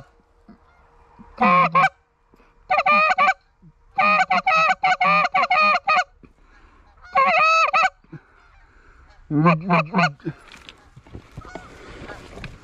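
Canada goose honks and clucks in five loud, close bursts, the longest a fast run of short clucks in the middle, fading to quiet about ten seconds in.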